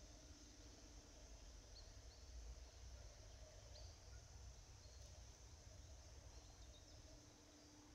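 Near silence: faint outdoor ambience with a low rumble and a steady high hiss, and a few faint, short distant bird chirps.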